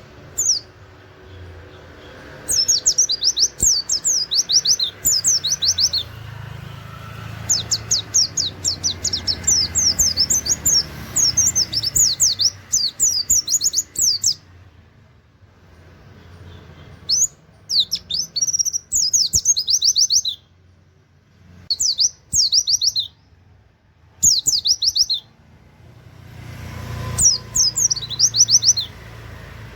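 Oriental white-eye (pleci) singing in its fast 'nembak' style: bursts of quick, high, downward-sweeping notes, each burst lasting one to several seconds, with short pauses between them.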